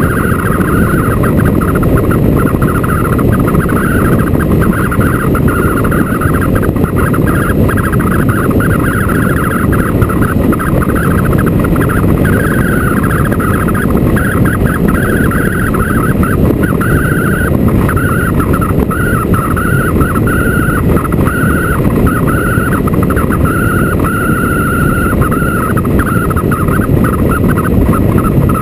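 Motorcycle riding at speed: a steady, loud rush of wind on the microphone over the running engine.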